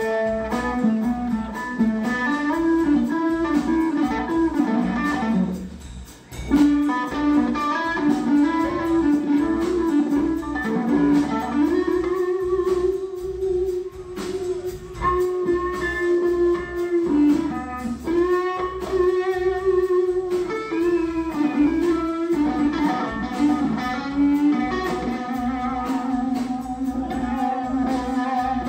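Live blues-rock band: a lead electric guitar on a Fender Stratocaster through a Marshall amp plays long sustained, bending notes over bass guitar and drums. The sound drops briefly about six seconds in, then comes back with a sharp hit.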